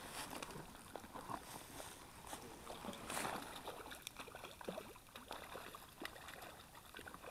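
Faint splashing and gurgling water as a small hooked brown trout thrashes at the surface of a shallow stream while being reeled in, with one louder splash about three seconds in.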